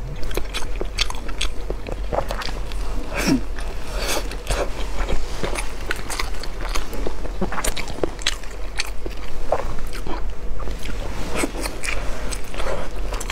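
Close-miked chewing and biting of glazed sticky rice, a dense run of irregular sticky mouth clicks and smacks.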